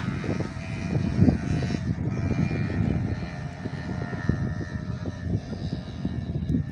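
Strong wind buffeting the phone's microphone: an uneven, gusting low rumble.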